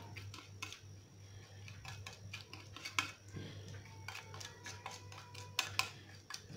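Metal spoon stirring and scraping a thick spice paste around a ceramic plate, with irregular clicks and scrapes of the spoon against the plate, the sharpest about three seconds in and near the end. A low steady hum runs underneath.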